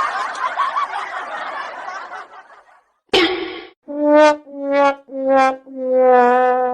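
A dense noisy sound that fades out over the first couple of seconds, then the "sad trombone" comedy sound effect: four muted brass notes stepping down, "wah wah wah waaah", the last one held and wavering.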